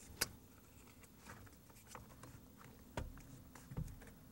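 Faint handling noise of a metal-backed foam weather strip being slid into place against a door frame: a sharp click just after the start, a few faint ticks, then two light knocks about three and almost four seconds in.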